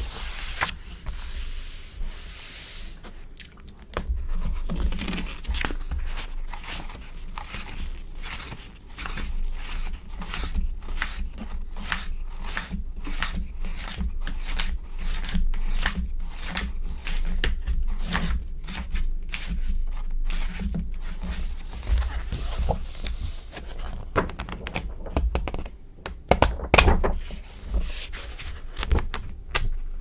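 Glossy magazine pages handled close to a microphone. A page turns with a swish at the start, then come many crisp crackles and taps as the paper is pressed and smoothed flat, and near the end there is another, louder page turn.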